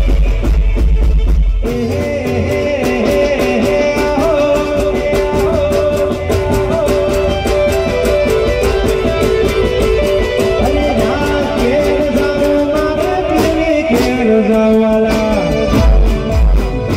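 Live garba music through a loud PA system: a fast, steady drum beat under a sustained melody. Heavy bass is strong for the first second or two and comes back near the end.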